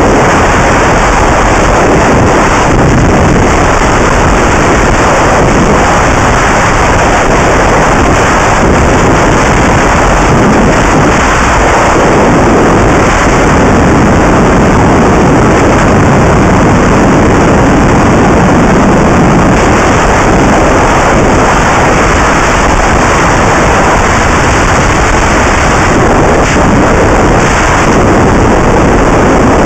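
Loud, steady rush of wind on a helmet-mounted camera microphone while riding a Husqvarna SMS 630 supermoto at road speed, with the bike's engine and road noise blended in. The badly set microphone is overdriven, so it all comes out as a flat, distorted roar.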